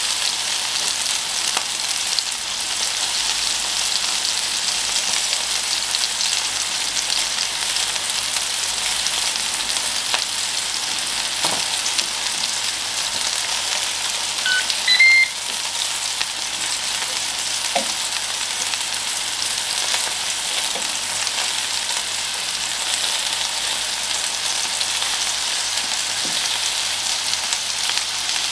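Field mushrooms in butter sizzling steadily on the hot grill plate of a Ninja electric grill set to medium. A few faint knocks are heard as cheese is laid on, and a short run of electronic beeps comes about halfway through.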